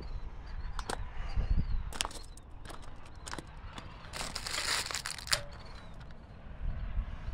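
Footsteps crunching on gravel and a few sharp metal clicks as a boat trailer's coupler latch is handled, with a longer rough crunching stretch about four seconds in.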